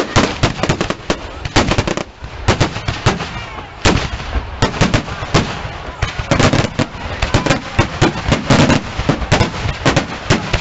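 Fireworks display: a rapid, near-continuous barrage of aerial shell bangs, several a second. It thins briefly about two seconds in, then picks up again with a sharp bang.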